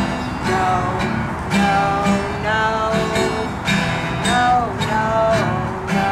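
Acoustic guitar strummed in a steady rhythm, about two strums a second, with a woman singing over it.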